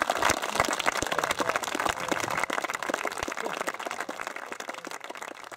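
Seated guests applauding, the clapping thinning out and fading near the end.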